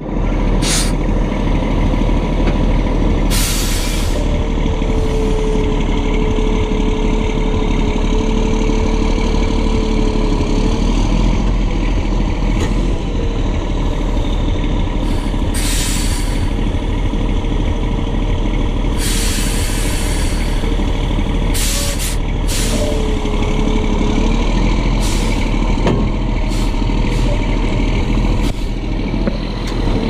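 Heavy diesel concrete mixer truck running steadily, with repeated short hisses of released air from its air brake system. A whine rises above the engine for several seconds near the start and again briefly later.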